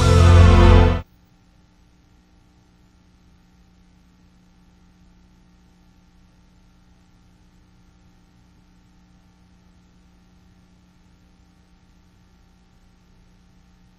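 Music cuts off abruptly about a second in, leaving a faint, steady electrical hum made of a few constant low tones.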